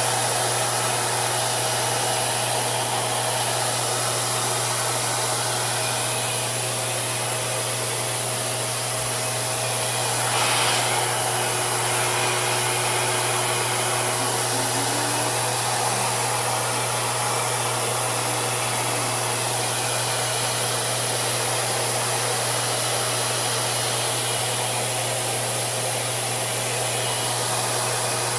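RevAir reverse-air blow dryer running steadily, drawing a section of natural hair into its suction wand to dry and stretch it: a constant rush of air over a low hum, swelling briefly about ten seconds in.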